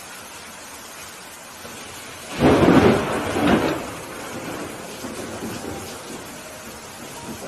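Steady rain with a sudden loud thunderclap a little over two seconds in, cracking in two surges and fading within about two seconds.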